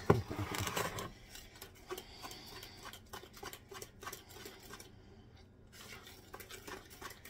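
Wire whisk stirring cobbler batter in a mixing bowl, the wires clicking and scraping against the bowl. It is busiest in the first second, then goes on as fainter, scattered clicks that thin out near the end.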